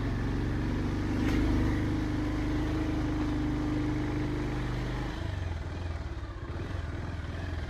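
Motorcycle engine running at low, steady revs while being ridden slowly, with a brief knock about a second in. About five seconds in the engine note drops as the bike slows to pull in.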